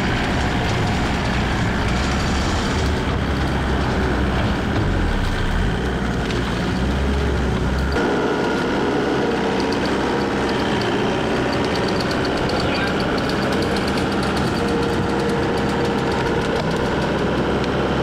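Skid steer's diesel engine running steadily. About eight seconds in, the deep low rumble drops away abruptly and a steadier, higher hum takes over.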